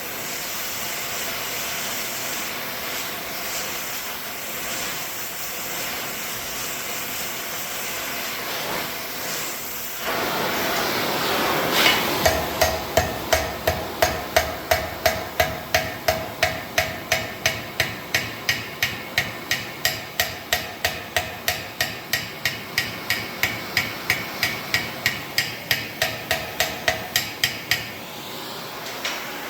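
Hand hammer striking hot 3/16-inch steel stock on a hinge rolling guide, forming the hinge knuckle. The blows are evenly paced, about two and a half a second, and each rings metallically. They follow a steady rushing noise and run for about sixteen seconds before stopping.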